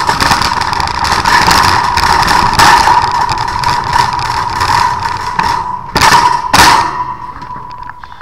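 Metal wire flatbed warehouse trolley pushed over rough tarmac, its wire cage and casters rattling loudly with a steady thin whine alongside. Two heavy jolts come about six seconds in, and the rattle quietens near the end as the trolley rolls onto the smooth warehouse floor.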